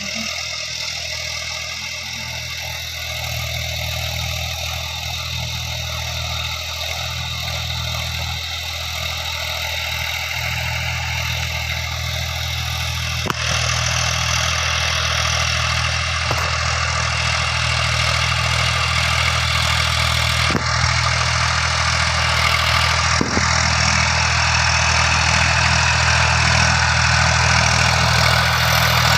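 Old tractor engine idling steadily, growing a little louder over time, with a few sharp clicks now and then.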